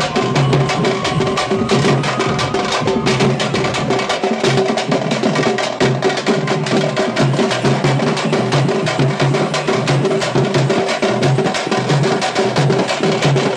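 Loud, fast Teenmaar drumming: a dense, rapid beat of many drum strokes without a break, with a steady pitched drone underneath.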